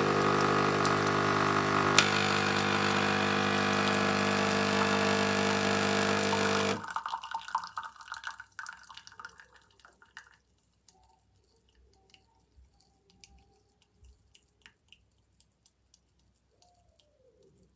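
De'Longhi Scultura espresso machine's pump buzzing steadily as it pushes water through, then cutting off about seven seconds in; after it, faint scattered drips and small clicks.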